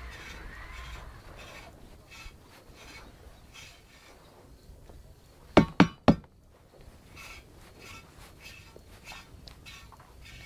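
A cat grooming comb raking through thick fur in short repeated strokes. About halfway through come three sharp knocks in quick succession as the comb is handled to clear the loose fur.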